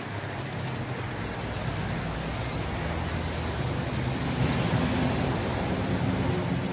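Steady rumble of road traffic with a low engine hum, growing louder about four seconds in.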